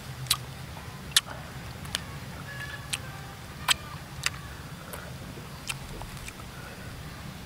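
Sharp clicks and snaps, roughly one a second, as small Baccaurea fruits are cracked open, peeled by hand and eaten, over a low steady hum.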